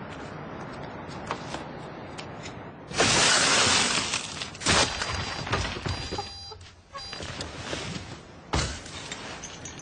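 A loud crash about three seconds in, lasting about a second, followed by a few sharp knocks and thuds over steady background noise.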